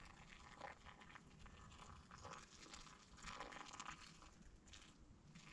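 Faint trickle of hot water poured from a metal kettle into a pour-over coffee dripper, with small crackly sounds that come and go.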